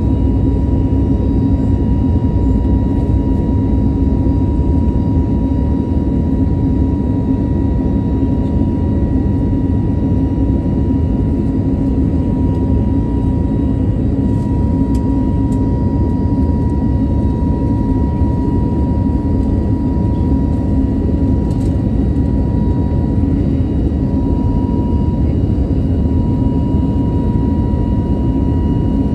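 Airbus A320neo with CFM LEAP-1A engines at climb power, heard from inside the passenger cabin: a steady, heavy rumble of engine and airflow noise with a constant whine over it.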